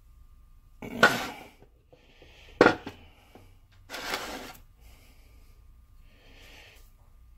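Metal tools and parts handled and set down on a wooden board: a heavy knock about a second in, a sharp clack a moment later, and a longer scraping knock at about four seconds, then quieter handling of the steel lead screw and its epoxy-repaired nut.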